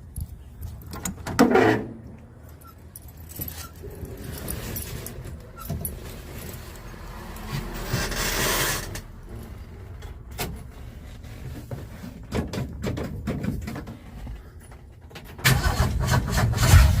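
Keys jangling and small handling clicks, then about three-quarters of the way in the 1965 Ford Mustang's engine starts on the first turn of the key and keeps running. It starts without the no-start click now that the rusty, loose battery connection has been cleaned.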